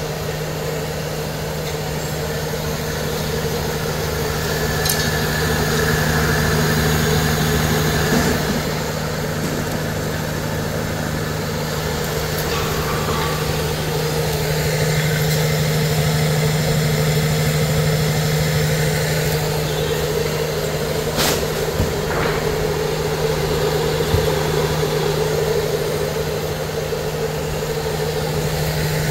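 Raj 14-inch domestic flour mill, belt-driven by a 3 hp electric motor, running steadily while grinding pearl millet (bajra) into flour: a constant hum with an even grinding noise. A single sharp click comes about three quarters of the way through.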